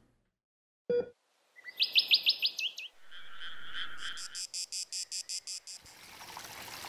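Nature sound design for an animated logo. A short tone comes about a second in. Then a bird's trill of about six quick rising chirps, a buzzing call, and a fast, even insect-like pulsing at about seven pulses a second. Near the end comes the soft rush of running water.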